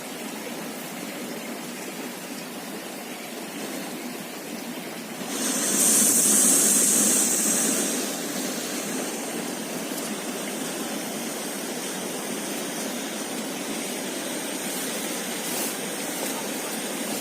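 River water flowing steadily. About five seconds in, a louder hissing rush rises for around two and a half seconds and then dies back. A faint steady high tone follows.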